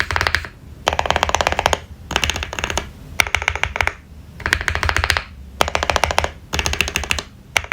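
Fast typing on a Meletrix Zoom65 mechanical keyboard with PBT keycaps and lubed switches: bursts of rapid keystrokes, each lasting under a second, with short pauses between, about seven bursts in all.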